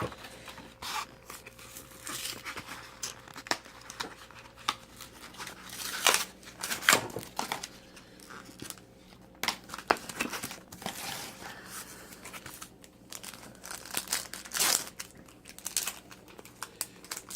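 Yu-Gi-Oh booster pack wrappers crinkling and tearing as packs and cards are handled: irregular crackles and rips, with louder bursts about six, ten and fifteen seconds in.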